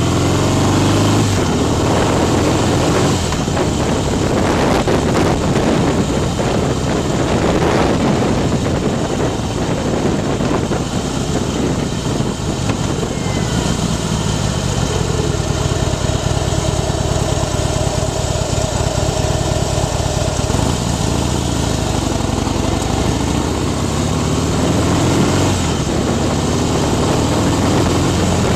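Harley-Davidson Night Train's V-twin engine, fitted with a Screamin' Eagle 103-cubic-inch Stage II big bore kit, running steadily while the bike is ridden along the road. Wind noise buffets the microphone over it.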